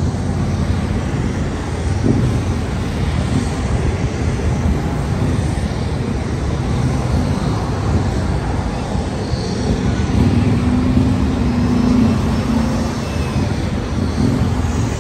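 Military rotorcraft flying near, a loud, steady low rumble.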